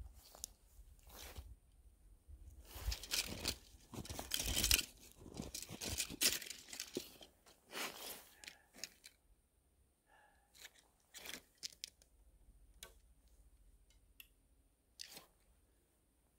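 Crunching and rustling of boots shifting in packed snow and of a winter jacket as an archer readies his bow, busiest in the first half. A few faint clicks and ticks follow, from handling the bow and arrow.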